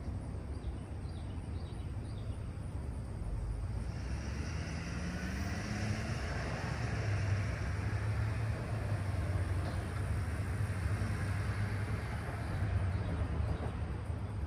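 Distant diesel locomotive engine running with a steady low rumble. About four seconds in it grows louder, with a short rising pitch as if the engine is throttling up.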